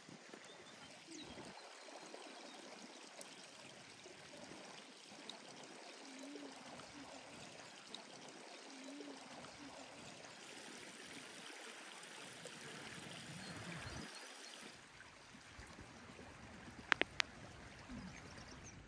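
Faint, steady rush of a stream flowing over stones. Two sharp clicks sound close together near the end.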